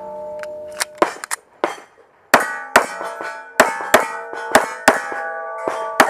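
A rapid string of gunshots, many in quick pairs, with steel targets ringing clearly after the hits.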